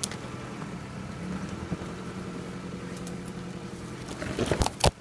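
Engine of a lifted off-road 4x4 on portal axles running steadily under load as it crawls up a steep dirt bank, with a burst of loud knocks and crackles near the end.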